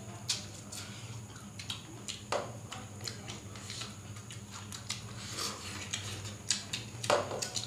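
Hands eating rice from stainless steel plates: scattered soft clicks, taps and scrapes of fingers on the metal, over a steady low hum in the room.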